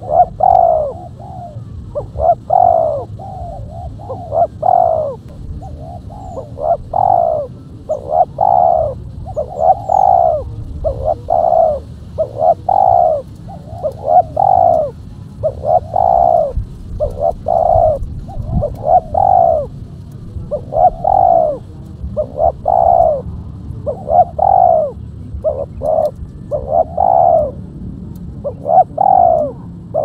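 Spotted dove cooing: a steady series of repeated low coo notes, roughly one a second, over a faint low rumble.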